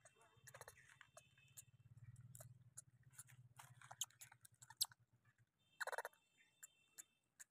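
Near silence with faint, scattered small clicks and scratches from a baby monkey's hands and feet gripping and scraping the dry bark of a tree stump.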